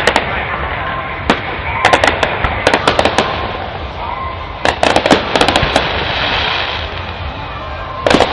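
Fireworks going off: clusters of sharp bangs and crackles in quick succession, a new volley every couple of seconds, over a steady background hiss.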